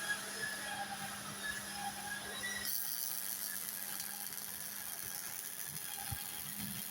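Motors of a 5-axis CNC welding table driving its axes, with short whines that change pitch as the moves change, over a steady electrical hum.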